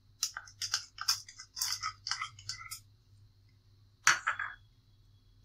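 Chopped onion tipped from a small bowl onto dry crushed Maggi noodles in a mixing bowl: a run of irregular crisp crackles and taps for about two and a half seconds, then a single knock about four seconds in.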